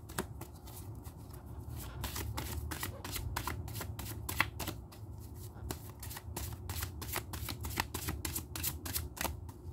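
A tarot deck being shuffled by hand, the cards giving a quick, irregular run of light clicks and slaps.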